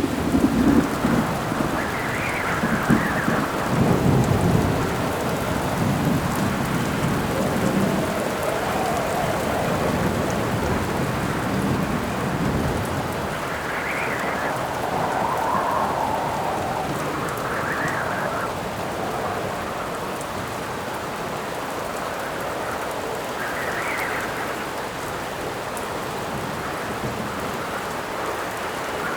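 Steady rain with thunder rumbling through roughly the first half, heaviest in the first few seconds. Gusts of howling wind swell and fade every few seconds.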